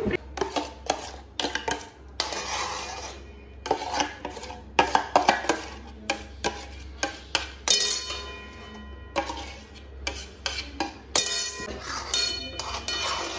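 Steel spoon clinking and scraping against a steel kadhai and a steel plate, as thick white sauce is poured into the pan and dried herbs and chilli flakes are tipped in: a string of sharp clinks, some ringing on briefly, over a steady low hum.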